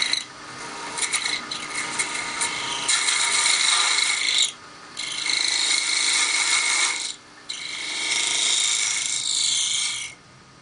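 Scraper cutting a spinning bone tenon on a wood lathe: a harsh scraping with a steady high-pitched whine. It comes in several passes broken by short pauses, and stops shortly before the end.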